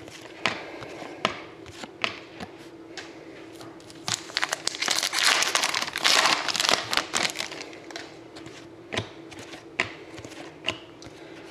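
Foil wrapper of a hockey card pack being torn open and crinkled, a dense crackle for about three seconds mid-way. Before and after it come scattered light clicks of trading cards being flicked and shuffled in the hand.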